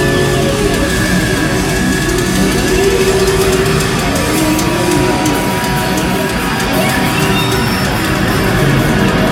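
Live heavy rock band played loud through stage amplifiers: several electric guitars with sliding, bending notes over drums and bass.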